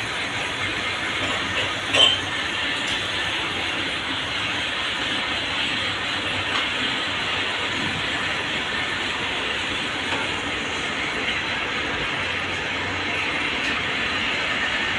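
Cord-making machinery in a dori factory running with a steady mechanical clatter, with one sharp metallic clink about two seconds in.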